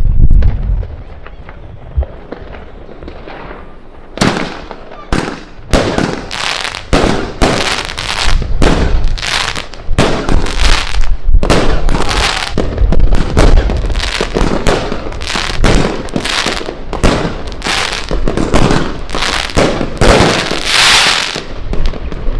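A 16-shot consumer firework cake firing. After a few quieter seconds it starts about four seconds in, with a rapid run of sharp bangs, roughly one and a half a second, that keeps going to the end.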